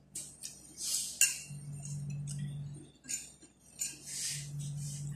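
Eating at a table by hand: short scraping and rustling as fingers work rice on a plate, with one sharp clink of a spoon against a plate about a second in.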